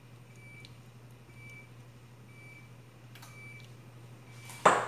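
Faint steady hum with a short high beep about once a second; near the end, a single loud clunk of the glass olive-oil bottle being set down.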